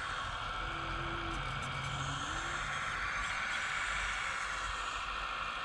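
Radio-controlled hydraulic mini excavator working, its pump whirring steadily over a hiss while the arm swings and moves. A low hum rises and falls in pitch from about a second in to halfway through as the hydraulics take load.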